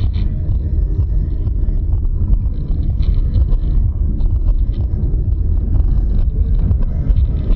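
Steady low rumble of a car's engine and tyre noise, heard from inside the cabin through a dashcam microphone, with a few faint clicks.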